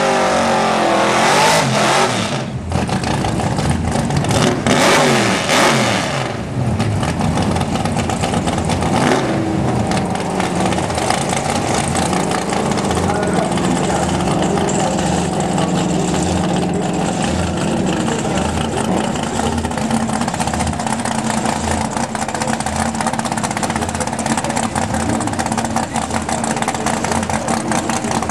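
Car engines running and revving, with louder surges in the first few seconds and steadier running after that, over a background of voices.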